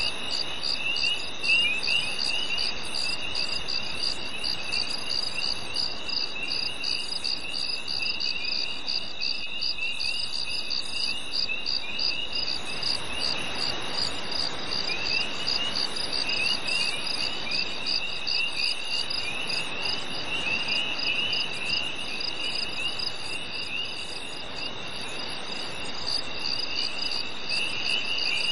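A night chorus of crickets: one steady high trill, a fast pulsed chirping above it, and a lower, rougher trilling that fades away in the middle and comes back near the end.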